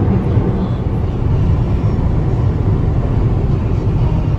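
Steady low rumble of a car on the road, heard from inside the cabin: engine and tyre noise at a constant cruising speed.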